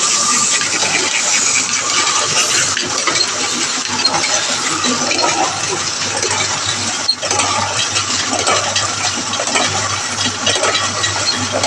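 Gestetner 211 offset printing press running steadily as it prints, with a brief break in the noise about seven seconds in.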